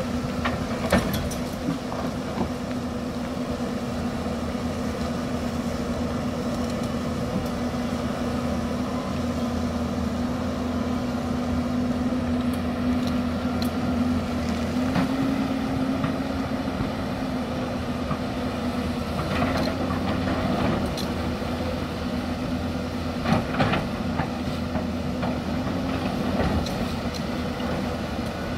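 Hyundai crawler excavator's diesel engine running steadily under digging load, with scattered knocks and scrapes as the bucket works soil and rock on the hillside.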